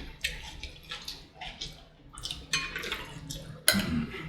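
Close-up eating sounds of sauced fried chicken: a run of short wet chewing and lip-smacking sounds, the loudest near the end.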